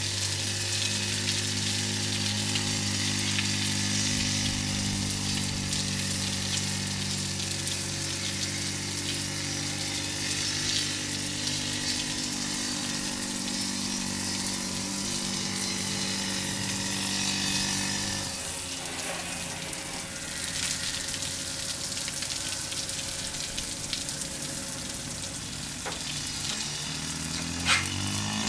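Steady hiss of water spraying from a soft-wash wand onto a clay tile roof, over the steady hum of the spray rig's pump, which weakens about two-thirds of the way through. A sharp knock near the end.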